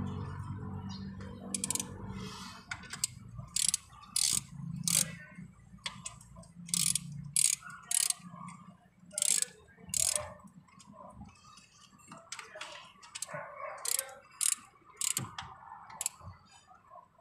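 Ratchet wrench clicking through short strokes in bunches with brief pauses, as bolts on the top of the cylinder head are turned.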